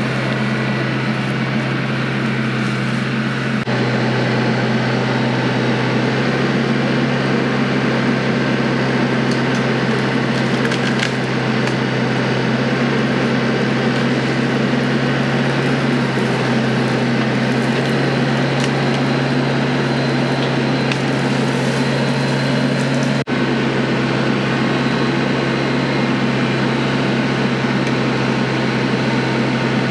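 Compact TYM tractor's diesel engine running steadily as its front-loader hydraulic tree shear cuts small trees. Sharp wood cracks and splintering snaps come now and then over the hum.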